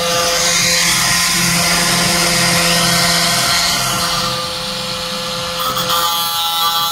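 Angle grinder with a thin disc running at a steady high whine while grinding the steel teeth of a chainsaw chain, with a hissing grind. The grinding eases about four and a half seconds in and picks up again shortly before the end.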